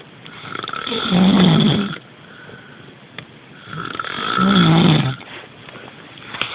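Heavy snoring: two long, rattling snores about three and a half seconds apart, each swelling louder before cutting off.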